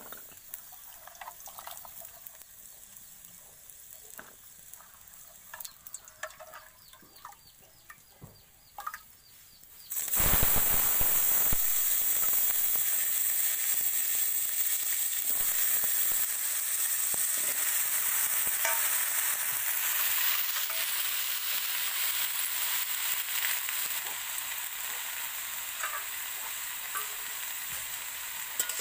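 Faint clinks of steel bowls and utensils, then about ten seconds in a loud sizzle starts suddenly as cut potatoes go into hot oil in a steel wok, and it carries on steadily as the vegetables fry and are stirred.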